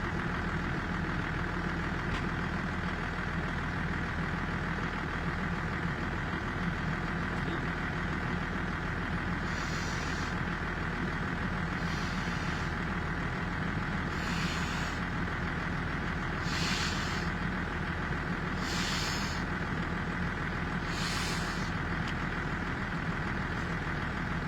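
A large vehicle engine idling steadily. From about ten seconds in, six short hisses come at even spacing, roughly one every two seconds.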